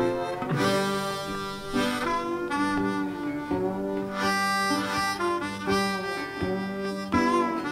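Background music led by a harmonica, its held notes bending in pitch, phrase after phrase.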